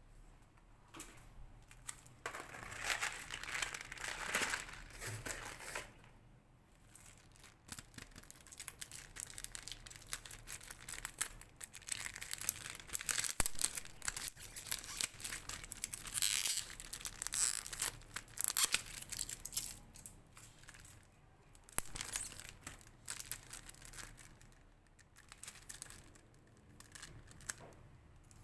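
LOL Surprise toy packaging being torn open and crinkled by hand: irregular bursts of tearing and rustling wrapper, busiest about halfway through, with short pauses between handfuls.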